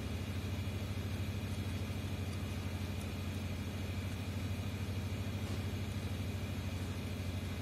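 A steady low machine hum that gets a little louder at the start, with faint steady high tones above it.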